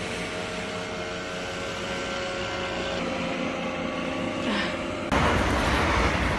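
Steady held tones for about five seconds, then suddenly a train going past close by, loud and noisy.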